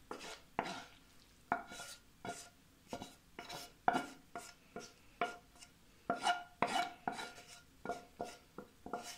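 A wooden spatula scraping and knocking fried onions out of a frying pan into a glass bowl: an irregular run of quick scrapes and taps, several with a short ringing tone.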